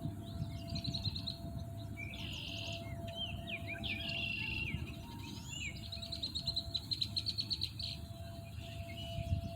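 Songbirds singing and calling, several overlapping: short chirps, rapid trills and slurred notes, over a low background rumble and a faint steady tone.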